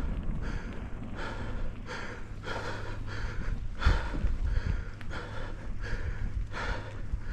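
A mountain biker breathing hard close to a helmet-mounted microphone, about one and a half breaths a second, over a steady low rumble from riding on dirt singletrack.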